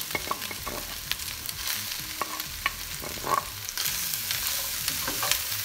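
Beef strips and onions sizzling in a frying pot as chopped green onions are tipped in from a ceramic bowl, with scattered light knocks and scrapes. The sizzle grows louder about two-thirds of the way through.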